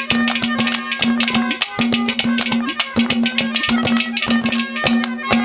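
Instrumental interlude of live Haryanvi ragni folk music: rapid, even hand-drum strokes over a repeated held note from a harmonium.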